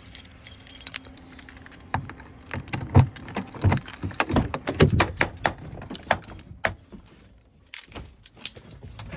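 Keys jangling with irregular clicks and knocks as a truck driver handles his keys and climbs into the truck's cab.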